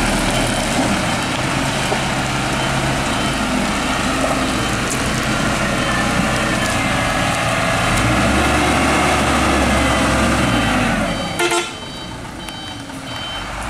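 Mitsubishi Fuso light truck's diesel engine running hard under load as the truck is worked backward out of deep mud, the revs climbing about eight seconds in. The engine drops off sharply near the end, and a truck's reversing beeper then starts beeping steadily.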